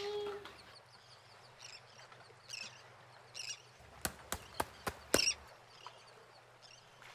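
Fingers tapping on a plastic crab-shaped sand mould, about five quick sharp taps in just over a second, knocking moldable play sand loose. A few faint scrapes of sand come before.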